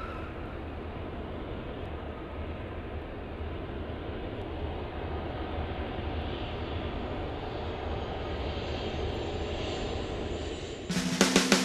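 Steady roar of a jet airliner's engines, a noise of even pitch with a low rumble that swells slightly midway. Near the end, loud, sharply struck rock music hits cut in abruptly and are the loudest thing.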